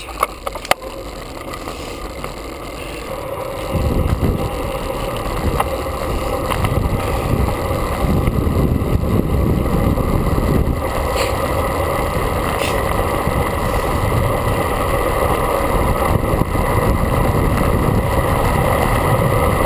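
Wind buffeting the microphone of a camera on a moving road bike, a low rushing rumble that gets much louder about four seconds in as the bike picks up speed and then stays steady. A few sharp clicks come right at the start.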